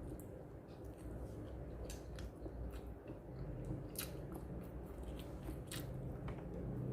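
Close-up eating: bites and chewing with scattered crunches and clicks, over the steady low hum of a washing machine running.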